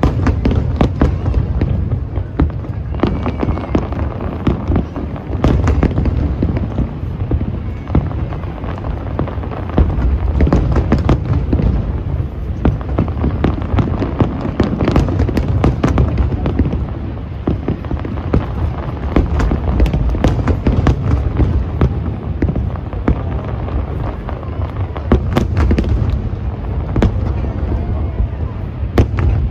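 Fireworks display: a dense, continuous barrage of bangs and crackling bursts over a deep booming rumble.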